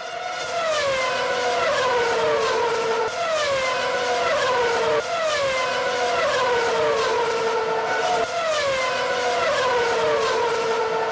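A 2007 Ferrari Formula One car's V8 engine screaming at very high revs. Its pitch falls and jumps back up again and again, about once a second, without a break.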